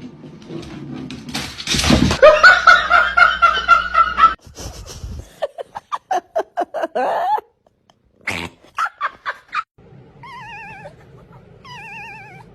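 Pet animals' calls in several short, cut-together clips: a long wavering call about two seconds in, a quick run of short cries around the middle, and a warbling trill near the end.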